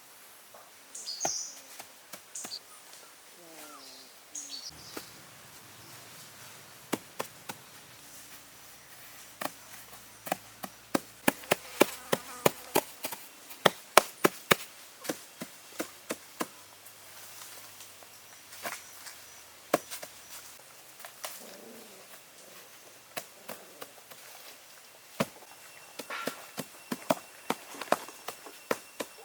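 Irregular sharp knocks, some single and some in quick runs, thickest about a third of the way through. A few high chirps sound near the start.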